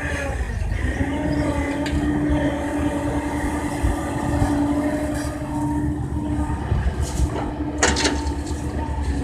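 Kobelco excavator's diesel engine running under load with a steady hydraulic whine and a low rumble. Two sharp metallic knocks come through it, a faint one about two seconds in and a louder one near the end.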